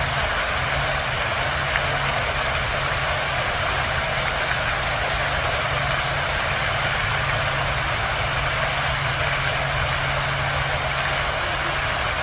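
Park fountain water splashing and rushing in a steady, unbroken stream, with a low steady rumble underneath.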